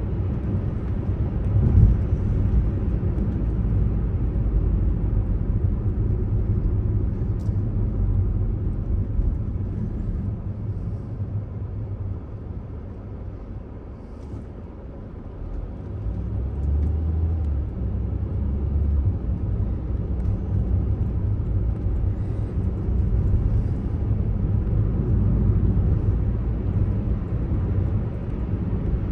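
Car cabin road noise while driving: a steady low rumble of tyres and engine. It eases off about halfway through as the car slows near a traffic light, then builds again as the car picks up speed.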